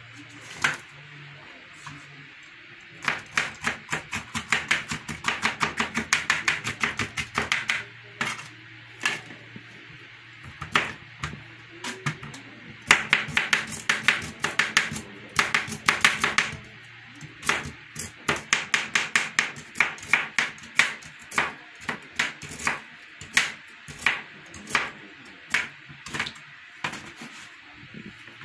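Kitchen knife chopping vegetables on a plastic cutting board: two fast runs of rapid strokes, then slower, evenly paced cuts of about two a second in the second half.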